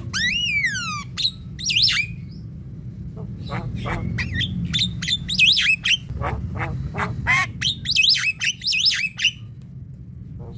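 Javan myna singing: a loud whistle that rises and falls at the start, a few sharp clicks, then after a short pause a rapid, varied run of sharp notes, squawks and short whistles, stopping shortly before the end.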